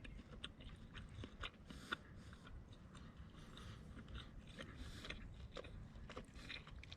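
A person chewing a piece of pan-fried pork chop close to the microphone: faint, irregular wet clicks and smacks from the mouth. The meat is a little chewy.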